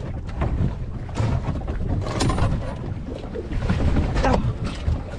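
Wind rumbling on the microphone over water slapping against a small boat's hull, with knocks and splashes as a diver in a wetsuit hauls himself aboard over the gunwale.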